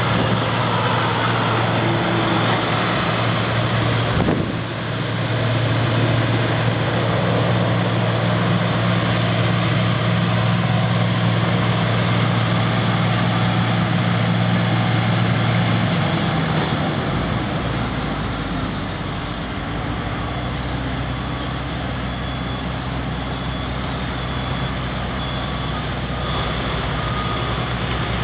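Heavy diesel engine of a Roadtec RX-700 asphalt milling machine running steadily, then dropping to a lower, deeper speed a little past halfway.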